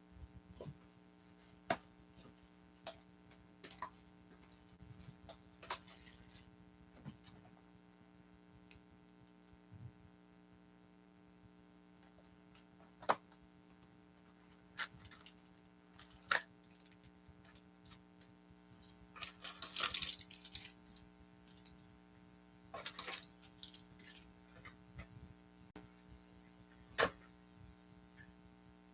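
Trading-card hobby box and its packs being handled and opened: scattered soft clicks and crinkles of cardboard and wrapper, with a longer crinkling spell about twenty seconds in. A steady low electrical hum runs underneath.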